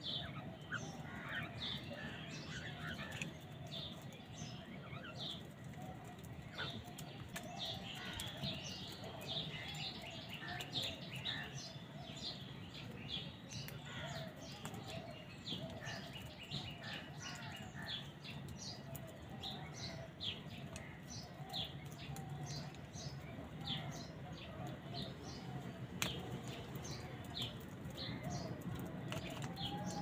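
A busy chorus of house crows and smaller birds calling over one another while they feed, with a steady stream of short, high chirps over repeated lower calls and some wing flaps.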